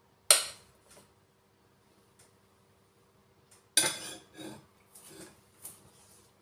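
Kitchenware clatter: a sharp knock of the spatula on the glass mixing bowl, then near four seconds a louder clunk as the glass bowl is set down on the wooden worktop, followed by several scrapes and taps of the spatula spreading cake batter in a metal loaf tin.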